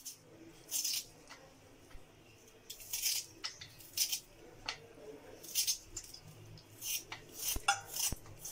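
Hand vegetable peeler scraping along a raw potato, in repeated short strokes at an uneven pace, roughly one or two a second.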